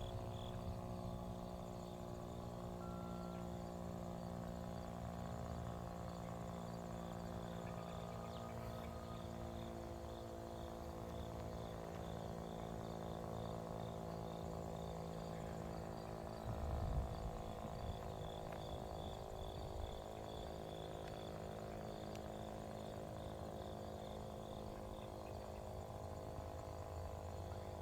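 Federal Signal STH-10 outdoor warning siren coasting down after its test, now a low drone with many overtones, with crickets chirping in rapid high pulses over it. A brief low thump about 17 seconds in.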